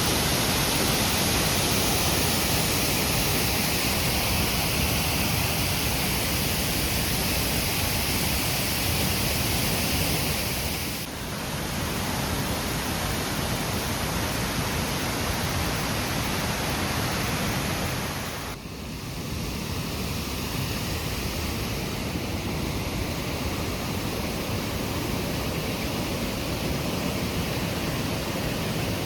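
Steady rush of a waterfall, Itaide Falls, cascading about 8 metres, dipping briefly twice.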